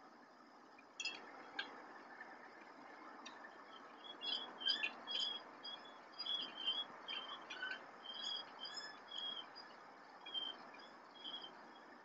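A series of short, high-pitched chirping calls, irregularly spaced and starting about four seconds in, over a faint steady night hiss and a thin high steady tone. There are a couple of sharp clicks about a second in.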